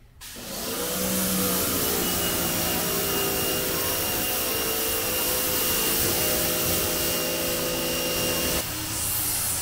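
Pressure washer running, its water jet spraying in a steady hiss over the hum of its motor as a car is rinsed. The motor note shifts near the end.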